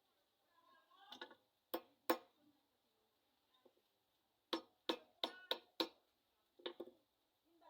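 A series of sharp taps or knocks: two, then a quick run of five, then one more, some with a brief ring.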